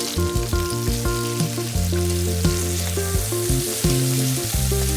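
Chicken breasts searing in hot fat in a skillet, a steady sizzle, under background music with held notes and a bass line.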